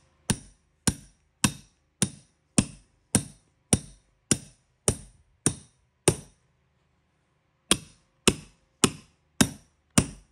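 Hammer striking a carpet tucker (stair tool) in steady blows, about two a second, driving a stair runner tight into the crotch of the step. The blows pause briefly just after halfway, then resume at the same pace.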